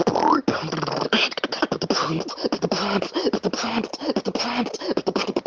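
Beatboxing: rapid vocal-percussion clicks and snare hits layered with short, bending hummed bass and melody tones, in a fast continuous routine.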